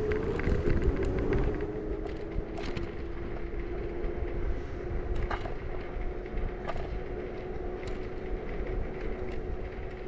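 Bird electric scooter's motor whining as it rides off, wavering in pitch for the first second or so and then holding one steady pitch, over low wind rumble on the microphone, with scattered clicks and knocks as the scooter rolls over cracked asphalt.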